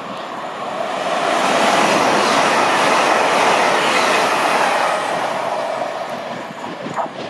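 Hull Trains Class 802 bi-mode express unit passing through at speed: a rush of wheel, rail and air noise that builds over the first two seconds, holds at its loudest, then fades away in the last two seconds as the train recedes. A short sharp knock comes near the end.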